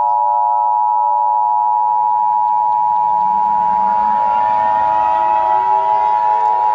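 Emergency Alert System attention signal: a loud, steady two-tone electronic alert tone held without a break. From about halfway through, a siren winds up underneath it, rising in pitch.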